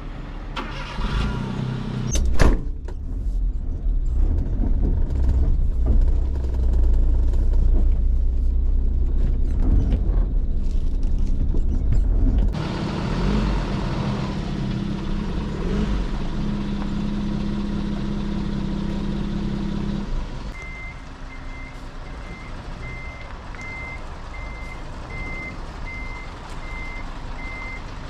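Vehicle engines: a small 4x4's engine running low for the first dozen seconds, with a loud knock about two seconds in; then a box truck's engine running steadily, and from about twenty seconds in its reversing beeper sounding about once a second as it backs up.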